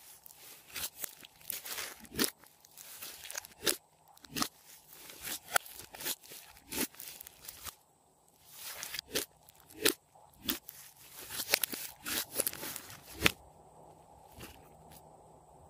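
Thick grey slime being kneaded, squeezed and stretched by hand, giving off irregular sharp clicks, pops and short squelches.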